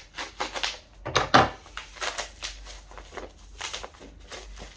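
Packing tape and plastic wrapping on a small parcel being pulled and torn open by hand: a run of crackling, rustling strokes, loudest about a second and a half in.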